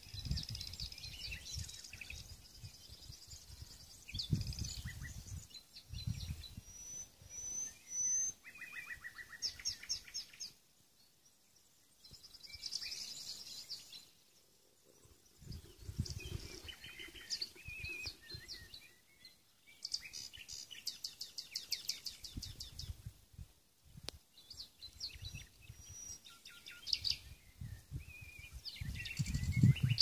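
Small songbirds chirping and singing, with short high calls and quick trills. Gusts of wind rumble on the microphone at intervals.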